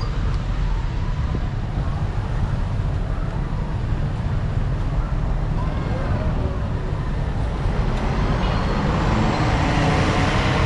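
Road traffic: cars running past close by over a steady low rumble, with a bus passing close near the end, where the noise swells.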